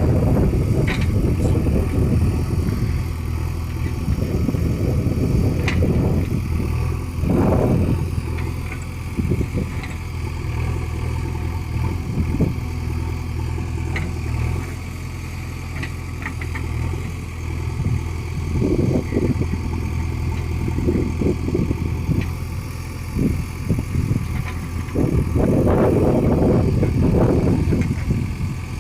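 JCB 3DX backhoe loader's diesel engine running steadily, with occasional louder surges of noise and a few sharp clanks as the machine works, the longest surge near the end.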